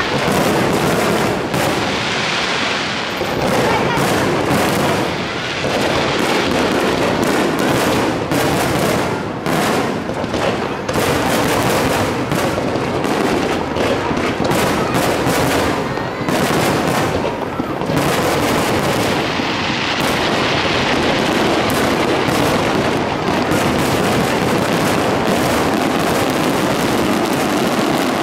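Fireworks display: a loud, unbroken volley of firework bursts and crackling, the bangs coming thick and fast.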